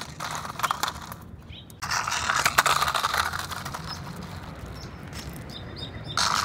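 Toy monster truck rolling over loose stones, its wheels crunching and rattling on the rocks. The crunching is loudest about two seconds in and then fades.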